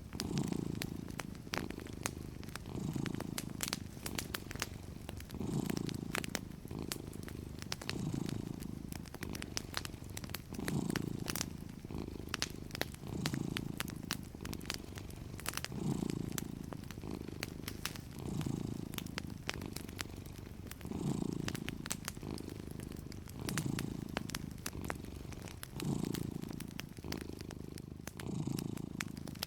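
A domestic cat purring, swelling and fading with each breath about every two and a half seconds, over the crackle of a wood fire: many small sharp pops and snaps.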